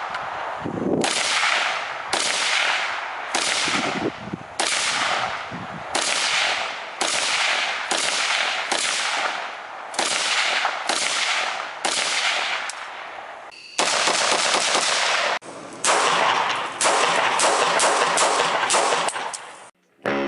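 Rifle fired shot after shot, about one report every three quarters of a second, each with a short echoing tail. Over the last several seconds it turns into a faster, denser string of rapid fire, which cuts off suddenly.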